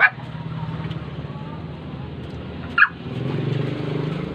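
A motor vehicle's engine running steadily, growing louder about three seconds in. Two short sharp sounds cut through it, one at the start and one just before the engine swells.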